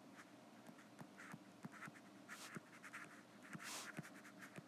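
Faint taps and short scratches of a stylus writing on an iPad screen, a few strokes each second.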